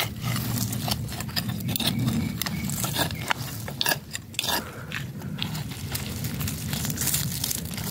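Digging and scraping through dry, stony soil to unearth potatoes, with many irregular crunches and small stones clicking, over a steady low rumble.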